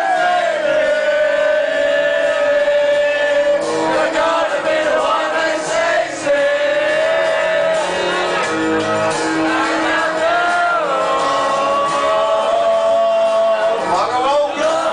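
Karaoke singing: voices belting long, held notes over a pop backing track, with some shouting from the crowd.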